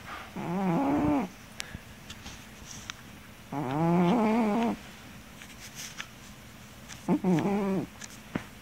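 Sleeping cat snoring: three long, pitched snores, each about a second long and a few seconds apart, one on each breath.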